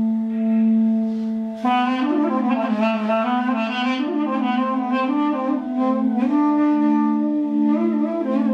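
Armenian duduk, a double-reed woodwind of apricot wood, playing a slow melody with gliding, ornamented notes over a steady low drone. The melody enters about two seconds in, above the drone alone.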